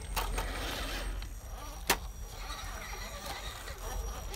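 Electric RC scale crawler working its way over logs: a faint high motor whine over a low rumble, with one sharp knock about two seconds in.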